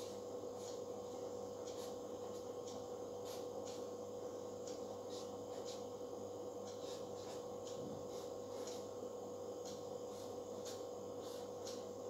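Marker pen squeaking and rubbing on a whiteboard in short strokes, about two a second, over a steady hum.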